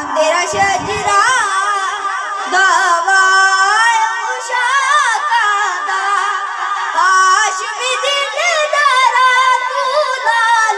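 A boy's high voice singing a devotional song solo and unaccompanied into a microphone, in long held notes whose pitch wavers and bends.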